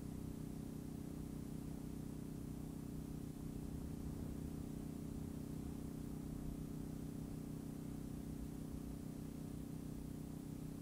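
Steady low electrical hum with faint hiss and no distinct events, typical of the recording noise on an old VHS home-video tape.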